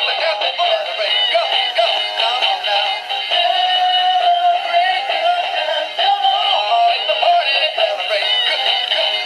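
Animated plush birthday tiger playing its song through its small built-in speaker, a synthesized singing voice over music, thin with no bass, while the toy wiggles.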